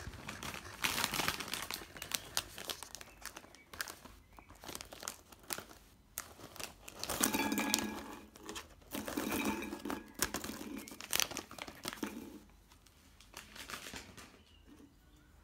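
Plastic snack bag crinkling in irregular bursts as it is handled, tipped and shaken out to pour puffed millet rings onto a plate. The bursts are loudest in the middle and die down near the end.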